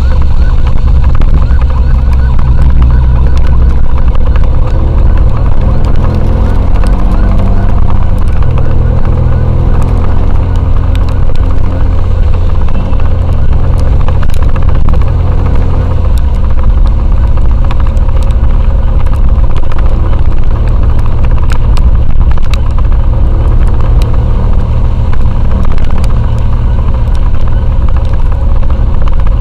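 Motorcycle on the move: the engine runs with its pitch shifting over the first several seconds, then steadier, over a loud, steady low rumble of riding.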